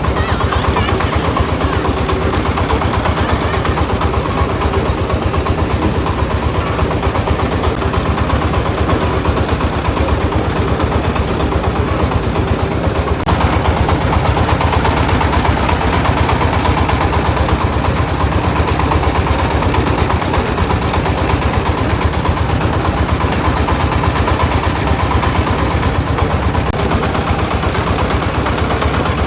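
An engine running steadily with a rapid, even pulsing, a little louder from about halfway through.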